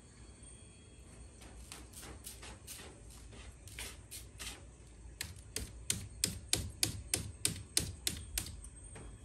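Cat digging in bentonite clay litter in a plastic litter box, its paws raking and scratching with short, sharp strokes. The strokes are scattered at first, then come quick and regular, about three a second, from about five seconds in until near the end.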